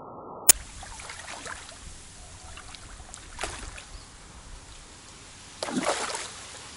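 A hooked fish splashing and thrashing at the surface close in, loudest for about half a second near the end, with a smaller splash around three and a half seconds in. A single sharp click about half a second in.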